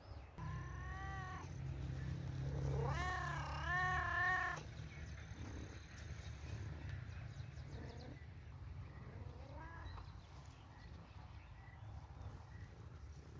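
Domestic cat meowing three times: a short meow at the start, a longer, wavering meow about three seconds in, and a faint short one later.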